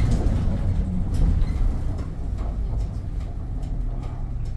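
Isuzu city bus heard from inside the passenger cabin: a low engine and road rumble that grows quieter in the second half as the bus eases off.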